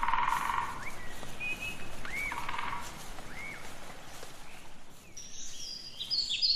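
Woodland birds over a steady background hiss: a few short, arching calls in the first few seconds, then from about five seconds in a bird singing a quick, high run of notes.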